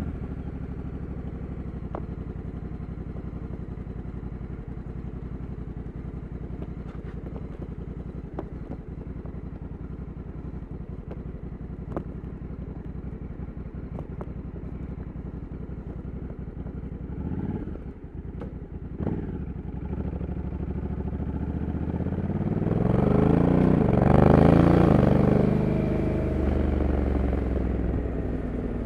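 Honda Africa Twin 1100's parallel-twin engine idling steadily, with a few single clicks. About three-quarters of the way in it pulls away, the engine note rising to its loudest, then easing back as it settles into a steady run.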